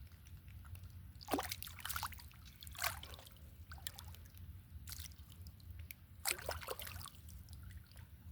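Water trickling and dripping in a string of small splashes, a few louder ones about a second and a half apart, over a steady low hum.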